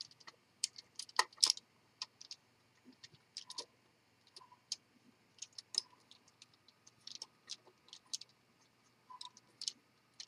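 Plastic Lego pieces clicking and tapping as they are handled and pressed onto a model: many light, irregular clicks.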